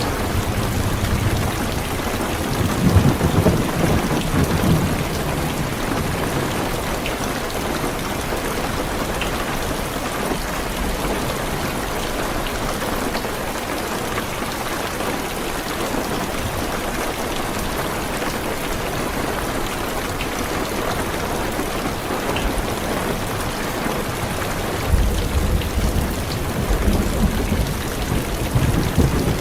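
Heavy rain drumming steadily on a car's roof and windows, with low rolls of thunder swelling at about two seconds in and again near the end.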